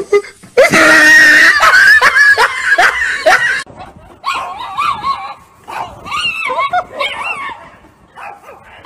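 A loud drawn-out cry that cuts off abruptly about three and a half seconds in, followed by a small dog giving short yips and whines.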